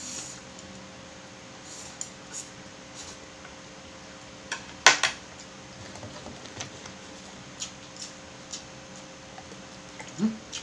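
Eating sounds from noodles being chewed, with scattered light clicks of bamboo chopsticks and one sharp clack on the tray about five seconds in.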